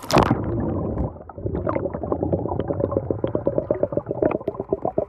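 A splash as the microphone goes under the water, then muffled underwater gurgling and bubbling from a person trying to talk underwater, a fast uneven string of bubble pulses.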